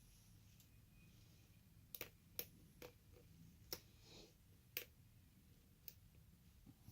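Faint, sharp clicks of pins inside an ABUS 83/55 padlock being worked with a lock pick: about six clicks at uneven intervals, starting about two seconds in.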